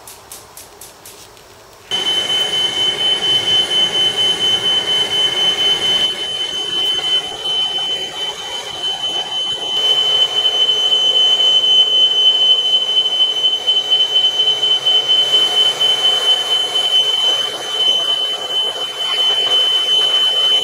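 Smoke alarm sounding a loud, steady high-pitched tone, set off by smoke from oil and contaminants burning off scrap lead being melted. It starts suddenly about two seconds in, over the hiss of a hand-held gas blowtorch flame.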